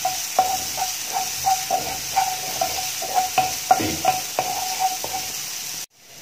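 Chopped garlic, ginger and red chilli paste sizzling in hot coconut oil in a nonstick frying pan, with a wooden spatula scraping and tapping the pan a few times a second as it is stirred. The sound stops abruptly near the end.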